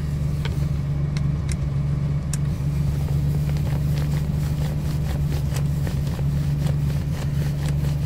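Steady low drone of an idling vehicle engine, with faint scattered clicks of a screwdriver turning a screw in the steering column's turn-signal switch.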